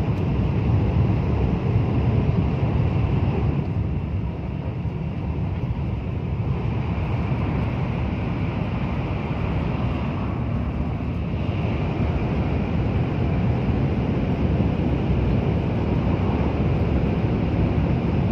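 Steady rumbling rush of a Shinkansen bullet train running, heard from inside the passenger cabin.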